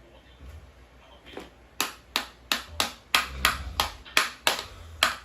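A run of sharp, even taps or knocks, about three a second, starting just under two seconds in and going on steadily.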